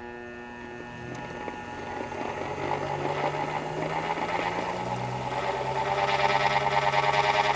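A switch clicks and the ATEC two-wheel pitching machine's motors start, its wheels spinning up with a steady whirring hum that grows louder over several seconds.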